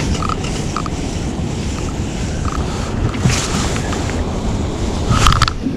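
Steady wind noise rumbling across the microphone on a small fishing boat, with a brief louder rustle about five seconds in.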